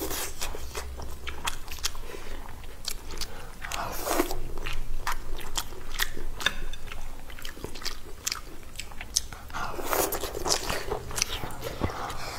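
Close-miked chewing and biting of food: a dense run of wet mouth clicks and small crunches that swells louder twice.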